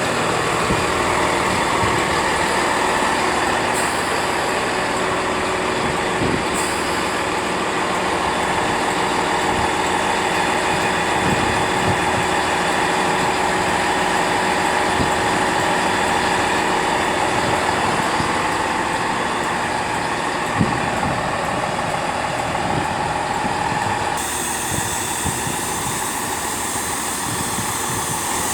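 A diesel train's engine running steadily, with a slight change in tone about 24 seconds in.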